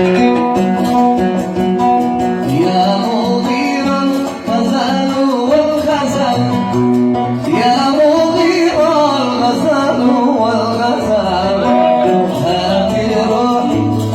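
Oud played in Yemeni Sanaani style, plucked notes under a male voice singing a melismatic line that starts a couple of seconds in.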